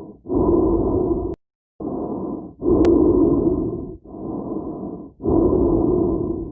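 Heavy, muffled breathing inside a helmet: slow breaths of about a second each, alternating louder and softer, with one brief cut to dead silence about a second and a half in.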